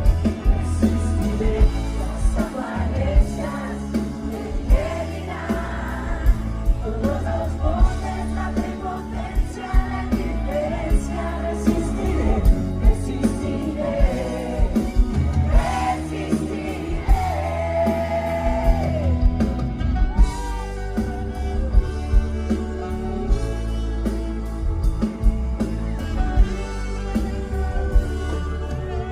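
Live pop-rock band playing with vocals singing over a steady drum beat.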